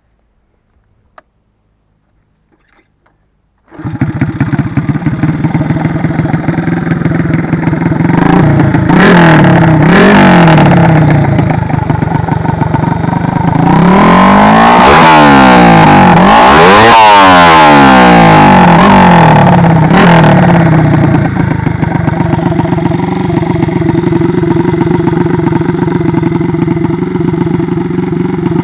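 Four-stroke single-cylinder engine of a Honda GLX 50 step-through with a Takegawa 59 mm big-bore kit. It catches suddenly a few seconds in and idles, and the throttle is blipped twice. It is then revved up and down several times, and it settles back to a steady idle near the end.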